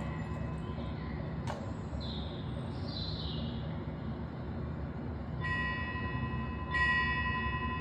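A small bell rings twice, about a second and a half apart, each clear tone ringing on after the strike, over a steady low ambient rumble.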